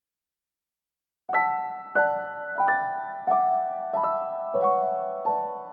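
Piano music: after about a second of silence, soft chords are struck one after another, about one every two-thirds of a second, each left to ring and fade.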